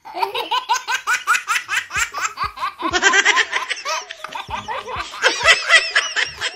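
A baby laughing: quick, high-pitched giggles, several a second. It grows louder and busier after about three seconds.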